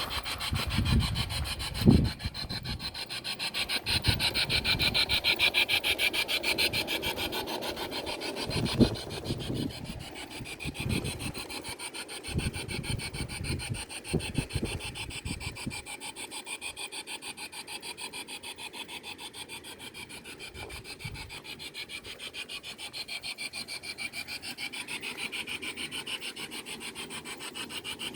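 Small railway train running along the track: a steady, rhythmic rasping clatter of wheels on rails, with a few low thumps in the first half.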